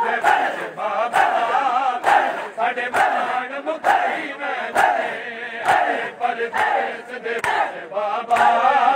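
A large crowd of men chanting a Punjabi noha, a Shia lament, while beating their chests with open hands in matam: sharp slaps land together about once a second under the chanting.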